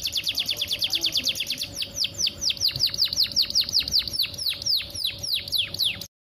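Canary singing a long trill of rapid notes, each sweeping down in pitch, the repeats slowing from about ten to about five a second. The song cuts off suddenly near the end.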